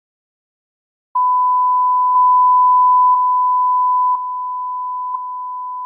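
A steady pure sine test tone near 1,000 Hz from an online tone generator, starting about a second in. A small click comes about once a second, and the loudness steps up once, then down twice.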